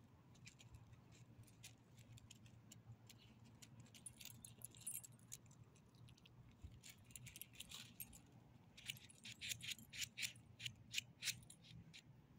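Faint, light metallic jingling and clicking from a small dog's collar and leash hardware as the dog moves about, with a quick run of clicks about nine to eleven seconds in.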